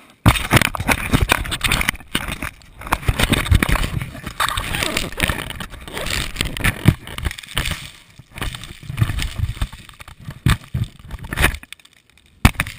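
Muffled knocks, scraping and rumbling picked up by a camera sealed inside a volleyball as it is handled and hit, with many short thumps at irregular intervals.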